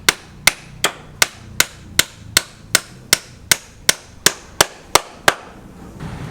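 Hammer blows in a fast, even rhythm, about three strikes a second, stopping near the end.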